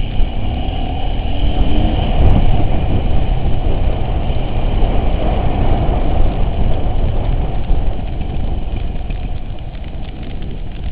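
Off-road vehicle running under way: a loud, steady, rough rumble that eases off a little near the end.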